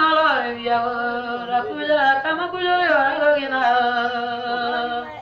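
A single voice singing a slow church song unaccompanied, with long held notes that slide up and down between pitches.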